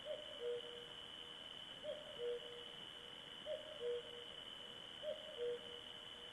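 A bird repeating a two-note hooting call, a short higher note then a longer lower one, about every second and a half, with a steady high-pitched whine underneath.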